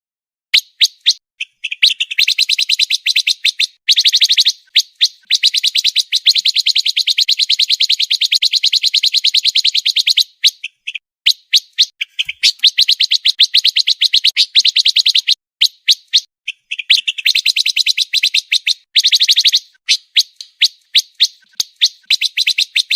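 Pancawarna songbird singing a fast, tightly packed run of rapid, sharp chattering notes, high-pitched, in long phrases broken by short pauses.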